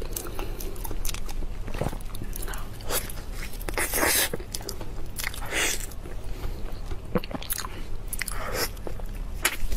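Mouth sounds of a person eating soft durian flesh: wet chewing and lip-smacking, with many short clicks and a few louder wet smacks.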